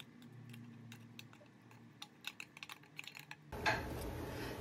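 Light, irregular clicks and taps, several a second, as a can of tuna is emptied into an earthenware pot. About three and a half seconds in, a louder steady background noise cuts in.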